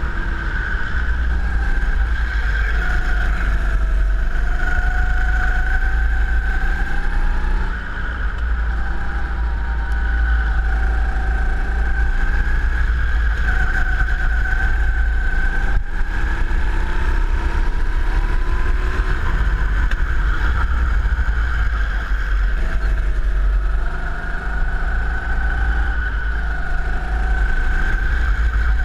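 Go-kart engine running hard on track, its pitch sliding down and back up as it comes off the throttle for bends and accelerates out, with a heavy low rumble of wind and vibration on the onboard microphone.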